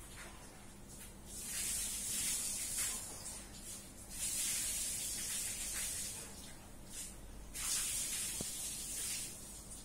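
Three drawn-out hisses, each lasting a second or two, with quieter pauses between them.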